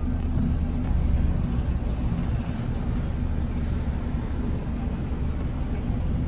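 Hino high-deck coach's diesel engine running at low speed, a steady low rumble heard from inside the cab as the bus manoeuvres slowly across a ferry's vehicle deck.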